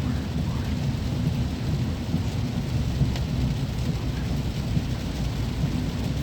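Heavy thunderstorm rain pouring steadily over a low, continuous rumble, with a single sharp crack about three seconds in.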